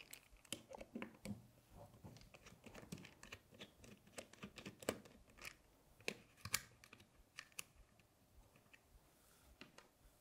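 Faint, scattered clicks and ticks of a hand tool undoing the motor-retaining screw in the bottom of an airsoft rifle's pistol grip and handling the small parts, with a few sharper clicks about five and six seconds in.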